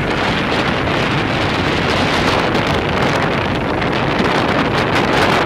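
Steady rush of wind buffeting the microphone at the open window of a moving train, over the low rumble of the train running on the rails.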